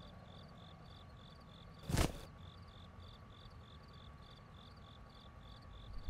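Crickets chirping in an even rhythm, about two or three chirps a second, a night-time cricket sound effect. A single brief, louder sound breaks in about two seconds in.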